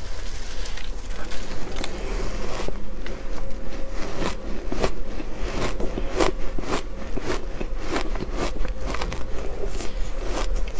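Shaved ice being bitten and chewed in big mouthfuls: a rapid, irregular run of crisp crunches that grows denser about three seconds in.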